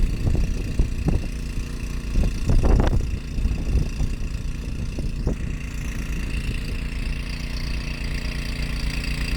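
Ariens Deluxe 30 two-stage snow blower engine running steadily, with louder surges of noise around the start and again about two to three seconds in.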